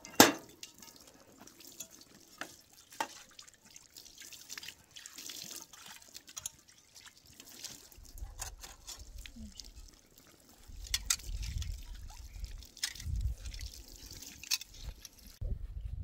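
Scattered drips and small clicks of water. A low rumble comes and goes in the second half.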